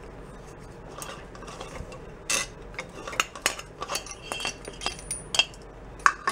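Irregular metal clinks and taps as the chrome headlight bucket of a Jawa motorcycle is handled and fitted with its lamp holder and mounting rod. They start about a second in and are loudest near the end.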